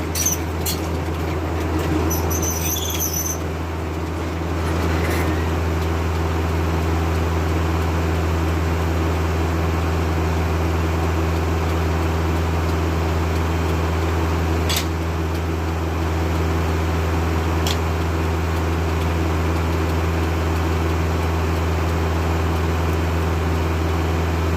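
A 40-horsepower Kubota tractor running steadily, driving a Foley-Belsaw circular sawmill, with a constant low drone. Two sharp clicks come midway.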